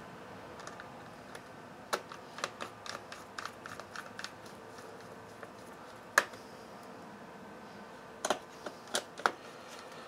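Light, irregular clicks and taps of small screws and a screwdriver on the plastic underside of a Sony Vaio laptop as the keyboard screws are put back in, in a scattered run about two seconds in, one sharper click near the middle and a short cluster near the end.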